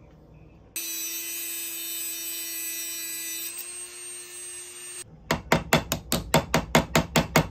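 A Dremel-type rotary tool runs at a steady pitch for about four seconds, stepping up slightly partway through. Then a small hammer taps rapidly on metal, about five light taps a second, peening the new blade pins of a pocket knife set on a bench vise anvil.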